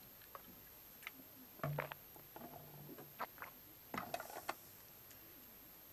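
Faint clicks and small knocks of a water bottle being drunk from and handled. A short low hum comes about two seconds in, and a cluster of clicks about four seconds in as the bottle is lowered.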